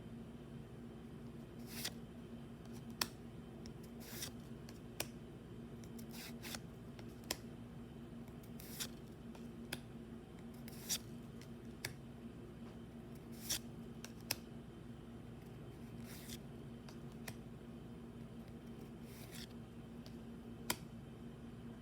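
Pokémon trading cards being handled and flipped through, making irregular short, crisp flicks and snaps, about a dozen of them, over a steady low hum.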